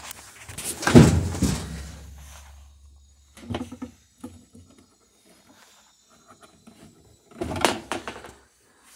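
Clunks and rattles from a Whirlpool top-load washer's cabinet as its worn tub suspension rods are worked loose and pulled out. A loud knock about a second in leaves a low ringing hum in the cabinet, and smaller clunks follow in the middle and near the end.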